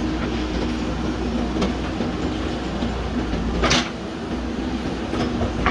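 JCB backhoe loader's diesel engine running steadily under load, with a held hydraulic hum and scattered clicks. A short, sharp clatter of metal comes a little before four seconds in.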